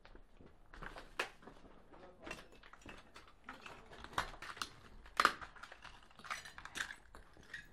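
A series of irregular sharp clicks and knocks, a dozen or so, the loudest about five seconds in.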